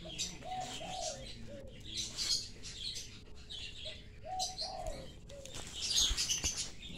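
Lovebirds chirping, high quick chirps throughout, with two short pairs of lower coo-like notes, one about half a second in and one about four and a half seconds in.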